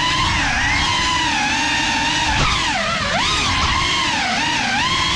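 GEPRC CineLog 35 cinewhoop's brushless motors and ducted propellers whining, heard close from the onboard GoPro, the pitch rising and falling constantly with the throttle and dipping sharply then climbing again about three seconds in. A brief click comes about two and a half seconds in.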